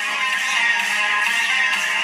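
Guitar music played from a phone over Bluetooth through a bare loudspeaker driven by a TPA3118 amplifier board. The sound is steady and thin, with little bass.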